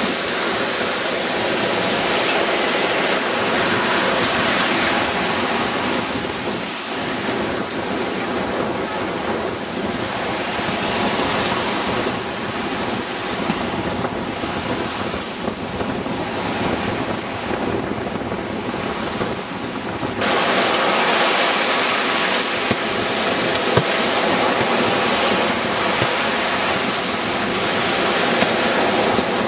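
Surf breaking and washing up a sandy beach: a steady rush of wave noise that turns suddenly louder and brighter about twenty seconds in.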